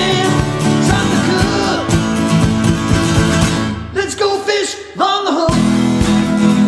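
Country-style song with a sung vocal, guitar and a steady beat. The bass and drums drop out for about a second and a half past the middle, leaving the voice, then the full band comes back in.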